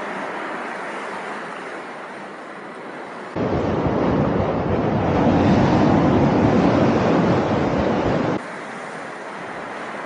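Riding noise from a moving motorcycle picked up by a 360 camera's microphones: wind rushing over the mics with road and engine noise beneath. It cuts suddenly to a louder recording with heavy low wind buffeting a few seconds in, then cuts back to the first, quieter one about a second before the end.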